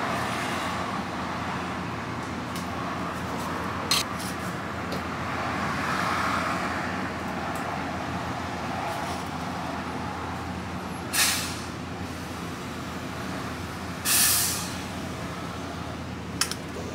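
Steady machine hum and room noise of a working shop kitchen, broken by short sharp hisses about 4, 11 and 14 seconds in, the last lasting about half a second.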